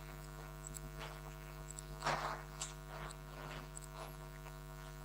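Steady electrical mains hum in the microphone and sound system, with a brief faint noise about two seconds in.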